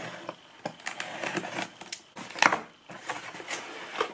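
A cardboard shipping box being opened by hand: its packing tape pulled and its flaps lifted, making rustling, scraping and sharp clicks of cardboard. The loudest scrape comes about two and a half seconds in.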